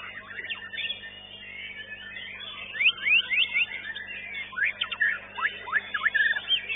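White-rumped shama (murai batu) singing: a rapid run of loud, sweeping whistled notes that picks up about two and a half seconds in.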